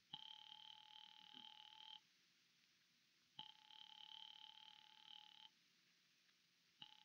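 Telephone ringing tone heard faintly through the receiver, a steady tone repeating about 2 seconds on and 1.4 seconds off: twice, then starting again near the end. The call is ringing unanswered.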